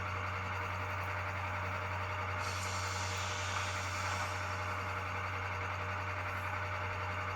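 HO-scale model ES44AC diesel locomotive's sound decoder playing the prime mover idling through its small speaker, a steady hum and rumble. About two and a half seconds in, an air hiss from the simulated automatic brake joins for about two seconds.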